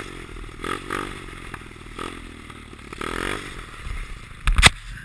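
Small 110cc monkey bike engine revving up and down in short bursts as the rider works the throttle on snow. Near the end come two sharp knocks, the loudest sounds, as the bike tips over into the snowbank.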